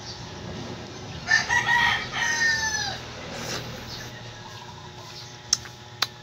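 A rooster crows once, starting about a second in: a loud call in two joined parts, the second sliding down in pitch at the end. Near the end come two sharp clicks half a second apart.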